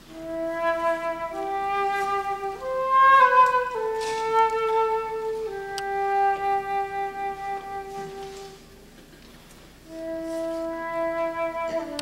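Flute playing a slow, lyrical melody of long held notes in a concert band piece, a phrase that climbs and then settles back. It breaks off briefly about nine seconds in and picks up again a second later.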